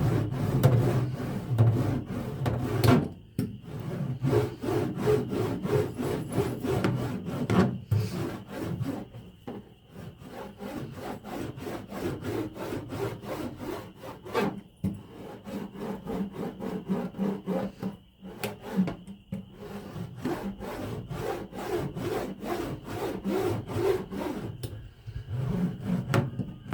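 A hand roller pressed back and forth over foil-backed Kilmat sound deadener laid on a van's metal floor, making a rough rubbing and crackling sound in repeated strokes with short pauses, as the butyl mat is flattened and bonded down.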